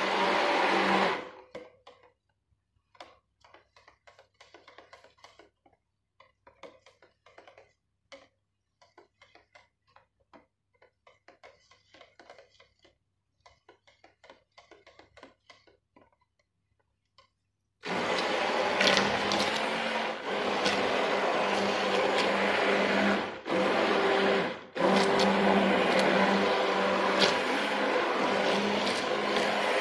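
Stick blender motor running in a stainless steel bowl of oils and lye, blending soap batter toward trace. It stops about a second in, leaving only faint clicks and scrapes for a long stretch. It then starts again two-thirds of the way through and runs on, cutting out very briefly two or three times.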